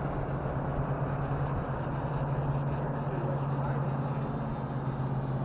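Boat's outboard motor running steadily, a constant low hum over a wash of water and wind noise.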